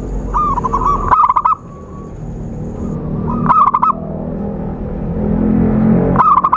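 Zebra dove (perkutut) calling in short phrases of rapid staccato coo notes: one near the start, one about three and a half seconds in, and one near the end. A steady low rumble runs beneath.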